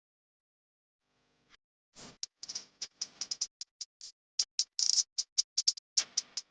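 Coloured pencil scratching on paper in short, quick strokes. It starts about two seconds in and goes on as an uneven run of sharp little scratches, a few each second.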